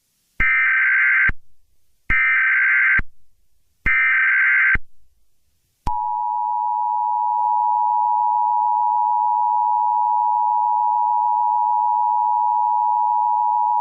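Emergency Alert System header: three short bursts of digital SAME data tones, each just under a second long, then from about six seconds in the steady two-tone EAS attention signal.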